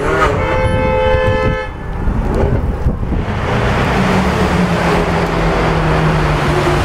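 A car horn sounds one steady note for about a second and a half near the start. Then the Porsche 918 Spyder's V8 engine runs loud in a road tunnel as the car drives past under acceleration.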